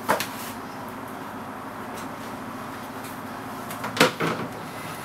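Bread dough being kneaded on a worktop: a few dull thumps as it is pressed and turned, one just after the start and two about four seconds in, over a steady low hum.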